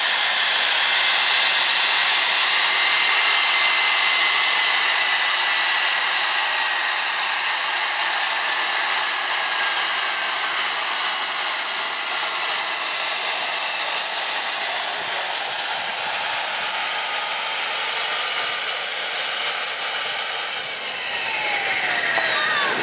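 Homemade jet engine running with a loud rushing whine whose pitch sinks slowly, then falls sharply near the end as the turbine spools down.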